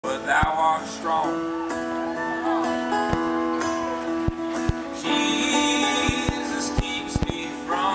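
Live band music from a stage, with held instrument tones and a voice, through a distorted audience recording with sharp crackles throughout.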